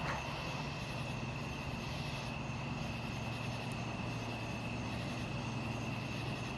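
Steady night chorus of crickets, a constant high-pitched trill, over a steady low drone. No firework bangs.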